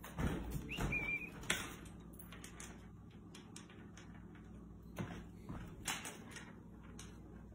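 Scattered light taps and rustles of a cat wand toy's lure and rod moving over a hardwood floor, with a brief high squeak about a second in.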